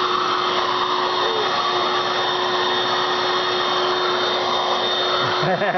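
Red Dirt Devil vacuum cleaner running steadily, a constant motor hum.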